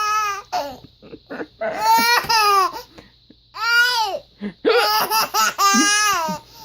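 A baby laughing in high-pitched squealing bouts, about four of them with short pauses between.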